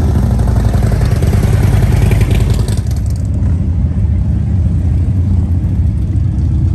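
Harley-Davidson touring motorcycle's V-twin engine running as the bike rides by, with a pulsing low rumble. About three seconds in the sound turns duller and the hiss drops away, while a steady low engine rumble goes on.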